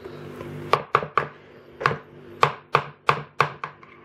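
A metal fork scraping and knocking pumpkin puree out of a plastic measuring cup: about nine sharp taps and scrapes at an uneven pace, starting under a second in.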